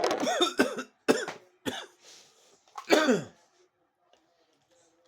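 A man in a coughing fit: several coughs in quick succession over about three seconds, dying down near the end. This is coughing after a hit from a THC vape cartridge.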